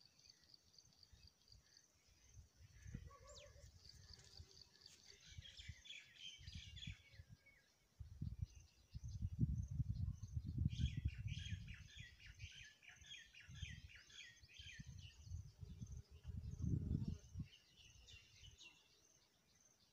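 Several small birds chirping and trilling with quick runs of repeated notes, over gusts of wind rumbling on the microphone that are loudest around nine to eleven seconds in and again near seventeen seconds.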